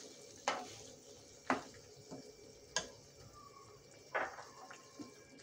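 Several light clinks and knocks of a utensil against a cooking pan, spaced a second or so apart, over a faint steady sizzle from the gravy in the pan.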